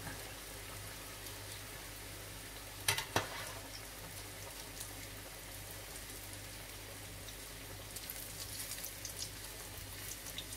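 Potato-coated eggs deep-frying in hot oil, a steady sizzle. There are two sharp knocks about three seconds in, and the crackling grows busier near the end as a slotted spatula turns the balls in the oil.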